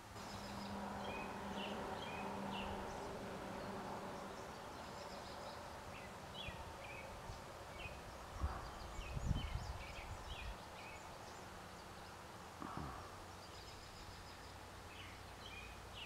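Outdoor ambience with birds chirping in the background, short high calls scattered throughout. A faint steady low hum runs through the first few seconds, and a few low thumps and rumbles come about halfway through.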